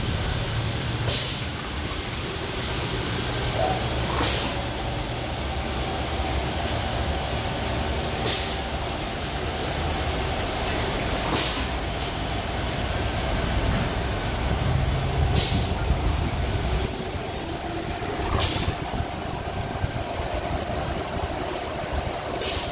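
Pneumatic piston paste filling machine cycling: its air valve vents a short, sharp hiss every three to four seconds, seven times in all. Underneath runs a steady low rumble that stops about five seconds before the end.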